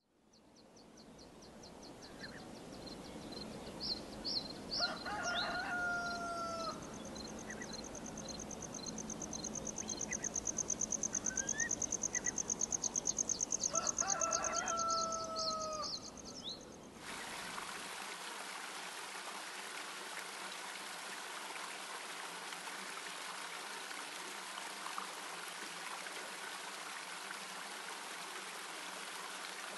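A rooster crows twice, each crow a held call that falls at the end, over small birds chirping and a high pulsing trill. About halfway through, the sound changes suddenly to a steady rush of running water, like a stream.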